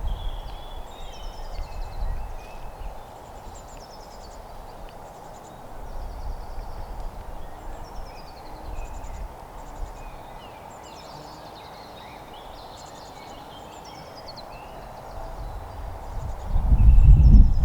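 Several small songbirds chirping and singing in quick repeated phrases over a steady background hiss. Wind buffets the microphone with a low rumble near the end.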